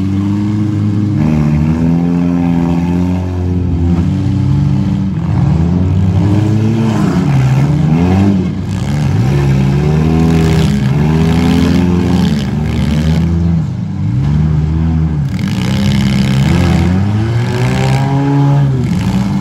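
Engines of several compact demolition derby cars revving up and down again and again, their pitch climbing and dropping.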